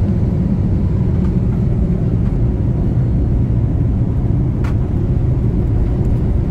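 Steady low rumble of a jet airliner heard from inside the passenger cabin: engine and cabin air noise while the plane is on its way to takeoff.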